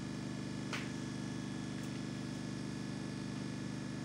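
Steady low machine hum with a light click about a second in.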